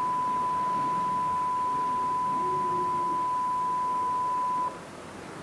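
Aurical HIT hearing aid test box's loudspeaker playing a steady pure tone to calibrate the reference microphone. The tone cuts off suddenly under a second before the end, as the calibration completes.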